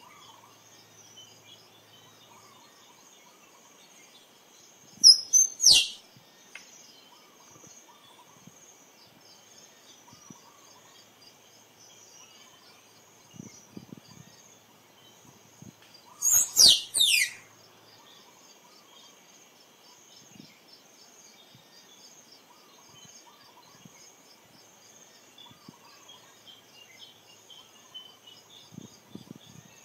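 Squirrel calling: two bursts of three sharp, high squeaks that each fall steeply in pitch, about five seconds in and again about sixteen seconds in. A steady high insect drone and faint bird chirps run underneath.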